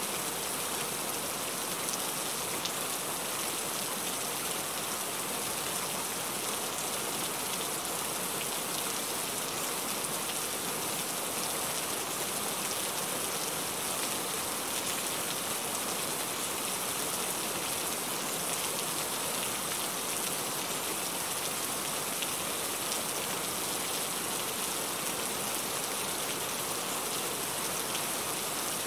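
Heavy rain falling steadily: a dense, even hiss, strongest in the high range, with faint scattered drop ticks.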